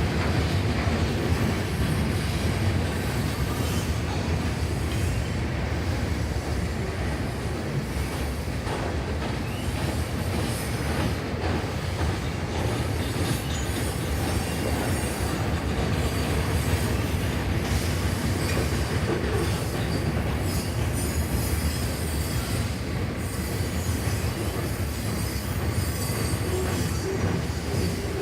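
CN freight train rolling past on the track: a steady rumble of wheels on rail with no horn sounding.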